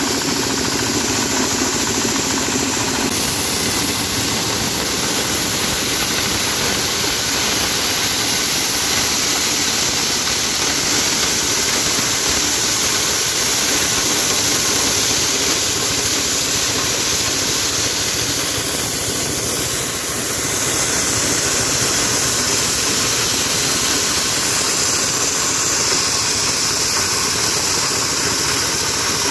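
Engine-driven corn sheller running steadily, its small engine and threshing drum working as corn cobs are fed into the hopper and shelled.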